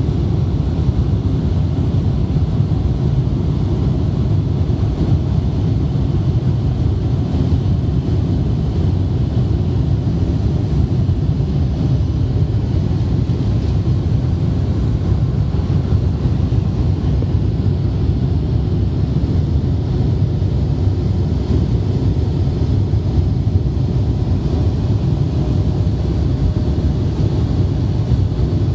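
Steady cabin noise inside an Avro RJ85 (BAe 146 family) on approach with its flaps extended. A low, even rumble of airflow and its four turbofan engines runs throughout, with a faint high whine above it.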